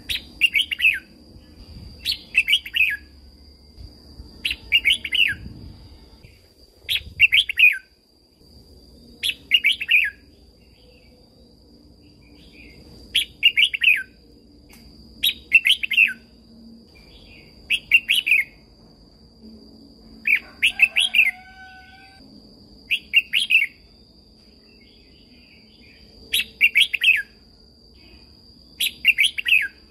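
Red-whiskered bulbul singing short, bubbly song phrases, one about every two seconds, over a faint steady high-pitched whine.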